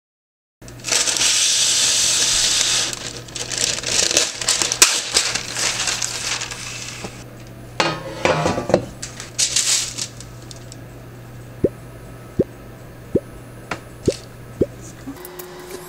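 Parchment baking paper pulled from its box with a loud, hissing rustle and torn off on the box's serrated edge, then crackling as it is smoothed onto a metal baking tray. Near the end come five light taps about two-thirds of a second apart as cut-out raw dough cookies are set down on the paper.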